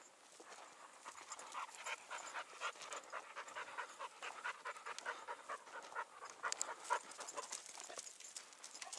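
Hunting dog panting hard and fast, about three to four quick breaths a second, with a few light clicks or crunches in the second half.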